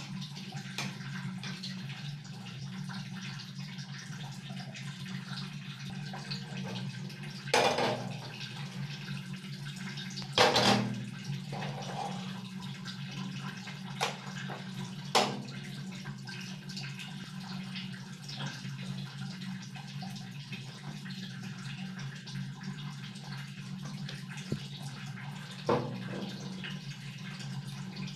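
Steady low hum and hiss, broken by a few sharp metal clatters and clicks as cookware is moved on a gas stove, the loudest about ten seconds in. One click comes as the burner knob is turned, about halfway through.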